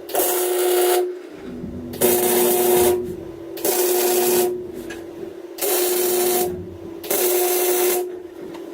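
MIG welder stitch-welding thin 18-gauge sheet-steel floor panels in five short bursts of about a second each, each a steady buzzing hiss.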